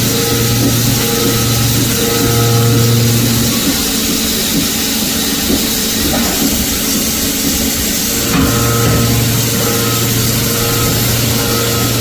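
CNC milling machine cutting hardened steel of about 58 HRC: a steady machining noise with a broad hiss and a low hum that swells and fades in pulses about once a second. The hum drops away a little under four seconds in and comes back after about eight seconds.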